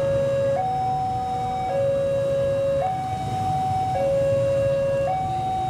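Electronic two-tone hi-lo warning alarm, switching between a lower and a higher tone about once a second at steady pitch, over a low rumble.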